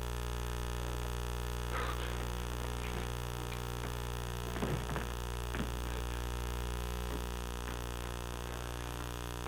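Steady electrical mains hum from a poor VHS transfer runs under the soundtrack. A few short, louder scuffle sounds from the fight stand out about two seconds in and again around five seconds in.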